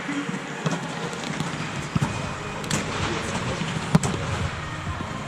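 Volleyball impacts during play in a large air-supported dome gym: a few sharp smacks of the ball, spread through the rally, the loudest about four seconds in.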